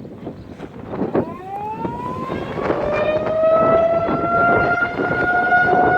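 Federal Signal 2001 tornado siren winding up for its scheduled test: starting about a second in, its tone rises in pitch and grows louder, then settles into a steady wail.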